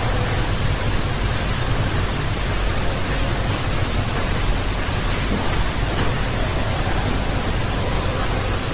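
Steady hiss like static, with a low hum underneath: the noise floor of a microphone recording a quiet screencast.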